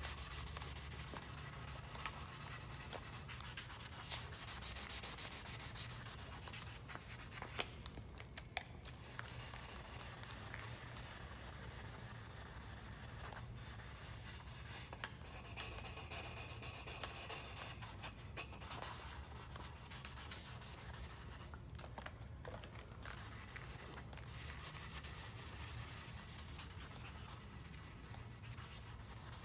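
Hand wet sanding of cured epoxy on a carbon-fibre rigger with 600-grit paper: a continuous rubbing, scratchy sound that swells and eases slightly with the strokes, with a few small clicks.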